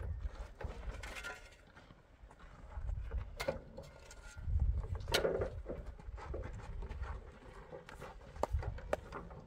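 Wind rumbling on the microphone, with irregular knocks and rattles from a metal wheelbarrow carrying a large rock being pushed over stony dirt, and footsteps. A few sharper knocks stand out, the clearest about three and a half and five seconds in.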